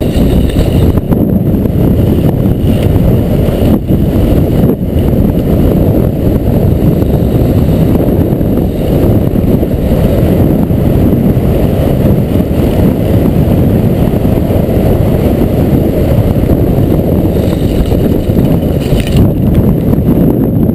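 Wind rushing hard over a helmet camera's microphone while skiing downhill at speed, a loud, steady low rush that does not let up.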